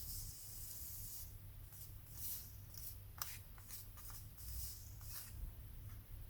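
Hot soldering iron tip rubbed in a tin of tip tinner: faint on-and-off sizzling and scraping with a few light clicks, over a steady low hum.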